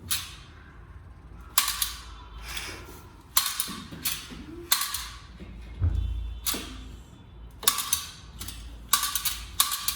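A series of sharp clacks or knocks, about a dozen at uneven intervals, each ringing briefly.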